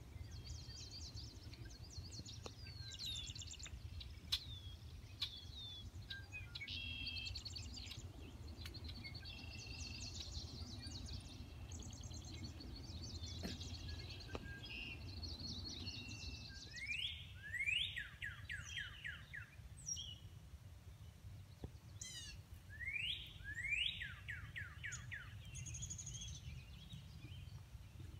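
Songbirds chirping and singing, with a faint low rumble underneath. Past the middle, one bird repeats a short song of several quick rising slurred notes every five or six seconds.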